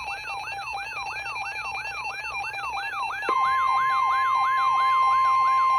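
Electronic siren-like alert tone, a rising sweep repeating about three to four times a second. About three seconds in, the steady 1050 Hz NOAA Weather Radio warning alarm tone joins it and the sound gets louder, signalling that a warning message is about to be broadcast.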